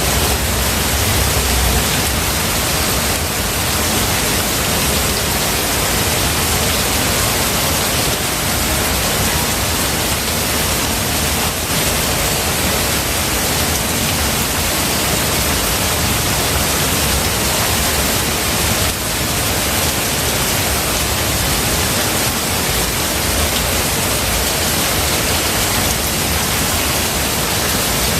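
Steady rain falling on forest foliage: an even, dense hiss with no breaks, and a low rumble underneath that swells now and then.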